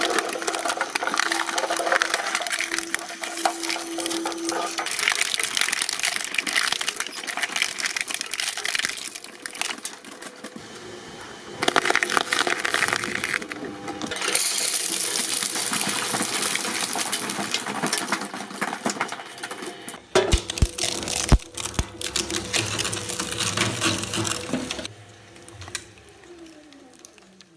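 Press machines at work in a run of short clips: clattering, clicking and clinking mechanical noise that changes abruptly several times, quieter near the end.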